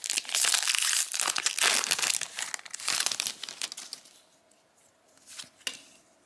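Foil booster-pack wrapper of a Disney Lorcana trading-card pack being torn open and crinkled by hand: a dense crackling for about three and a half seconds, then two brief soft rustles near the end.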